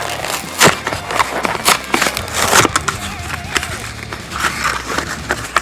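Hot Wheels blister pack being torn open by hand, plastic bubble and cardboard card crackling and snapping in an irregular run.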